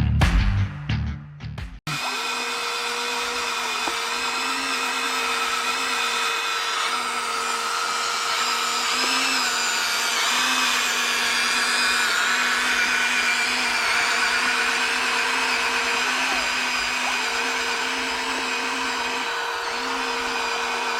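Music for about two seconds, then a radio-controlled construction toy's small electric motor and gearbox whirring steadily, a held whine over a lower hum, the whine dropping out briefly near the end.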